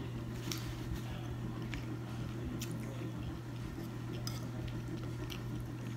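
Close-up chewing and mouth sounds of someone eating, with a few faint clicks, over a steady low hum.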